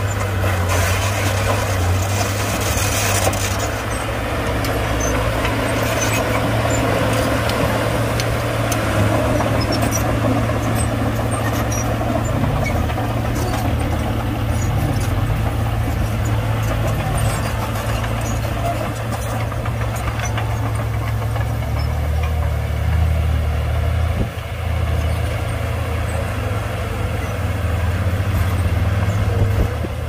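LiuGong bulldozer's diesel engine running steadily under load, a low constant note with occasional short knocks.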